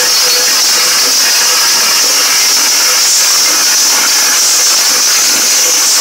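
Loud dance music from festival loudspeakers, so overloaded on the microphone that it comes through as a steady, distorted hiss with no clear beat.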